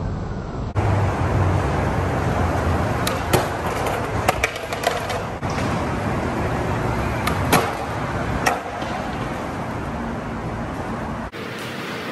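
Skateboard wheels rolling over concrete with a steady rumble, and several sharp clacks of skateboards hitting the ground in the middle seconds.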